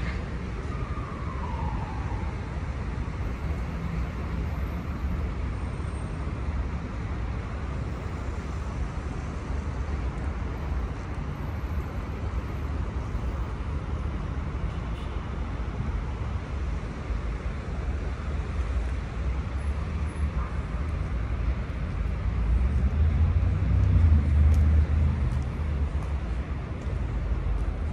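Steady hum of city road traffic, mostly a low rumble, swelling louder for a few seconds near the end.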